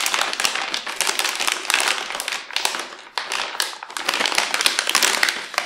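Metallized anti-static shielding bag crinkling and crackling as a graphics card is pulled and slid out of it, with brief lulls between handfuls.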